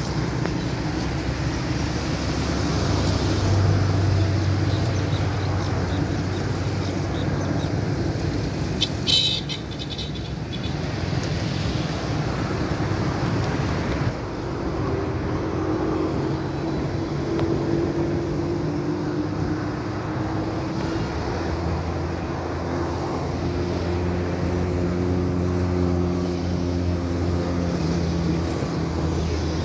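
Steady background of distant road traffic with a low hum throughout, and a short sharp high-pitched sound about nine seconds in.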